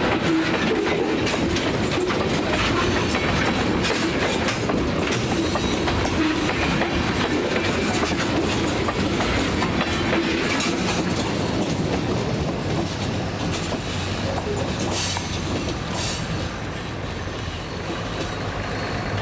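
Freight cars of the Austin Western Railroad local rolling past at a grade crossing: a steady rumble with wheels clicking over the rail joints.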